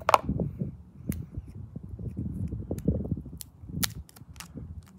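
Sharp clicks and taps from handling an Apple Pencil 2 still in its plastic film, scattered irregularly over a low rumble, the loudest right at the start.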